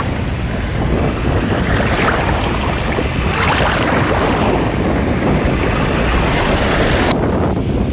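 Baltic Sea surf washing in at the shore in swells every second or two, with wind buffeting the microphone. A single sharp click near the end.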